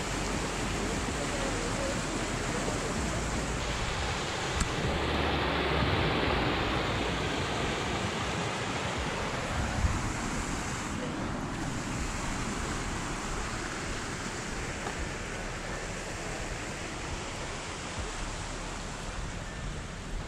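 Small mountain stream rushing steadily over little cascades, with some wind rumble on the microphone at times.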